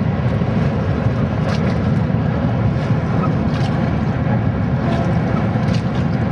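Steady low rumbling noise aboard a wooden rowing boat on the river, with a few faint knocks.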